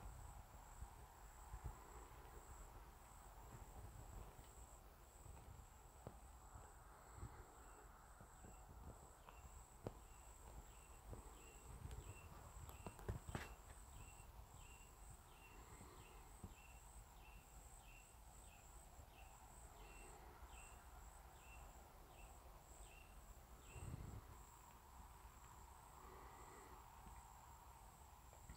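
Quiet pine woods: a steady high insect drone with a run of short chirps repeating somewhat faster than once a second through the middle, and scattered soft rustles and clicks, as of slow footsteps in leaf litter.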